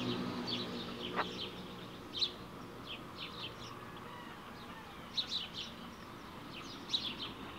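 Small birds chirping: short, high peeps in quick clusters scattered throughout, with a single rising whistle about a second in.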